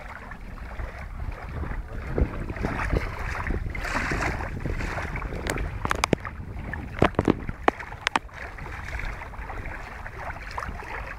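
Wind blowing on the microphone: a steady low rumble with hiss, swelling in gusts, and a handful of sharp clicks about six to eight seconds in.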